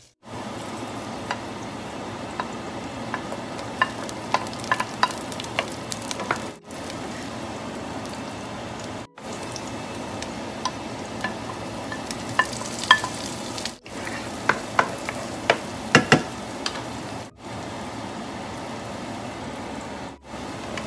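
Sliced garlic, ginger and red onion sizzling in hot oil in a nonstick pot, with sharp clicks of a wooden spoon against the pan as they are stirred. The sizzle breaks off for a moment about five times.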